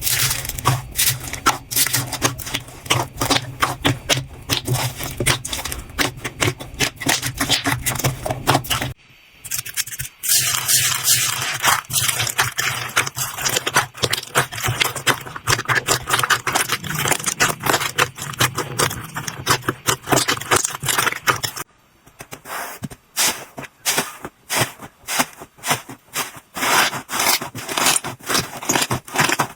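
Slime being squeezed and pressed by hand, giving many quick crackling clicks and scrapes. The sound changes abruptly about 9 seconds in and again about 22 seconds in.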